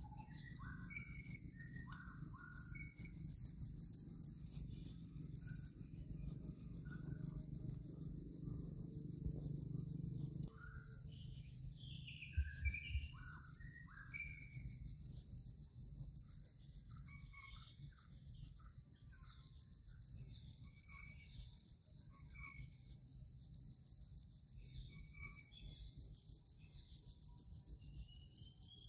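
Shrill insect chorus: a high, steady trill pulsing rapidly, dipping briefly now and then. Short bird chirps are scattered through it.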